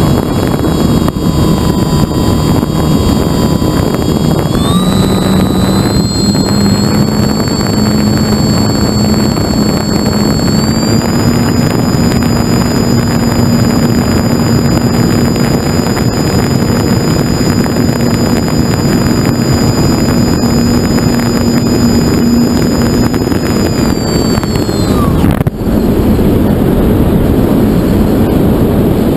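Wind rushing over an onboard camera on a radio-controlled model glider. About five seconds in, the glider's motor and propeller spin up to a steady high whine, then wind down and cut off near the end.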